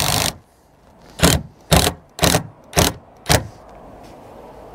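Bosch PDR 18 LI cordless impact driver driving a roofing screw into corrugated iron. It runs continuously and stops about a third of a second in, then fires five short bursts about half a second apart, snugging the screw down onto its profile washer.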